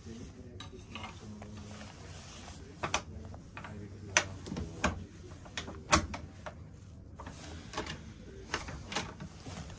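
Sleeper compartment door's lever handle and lock being worked by hand: a series of sharp metallic clicks and latch snaps, the loudest about six seconds in, over a steady low hum.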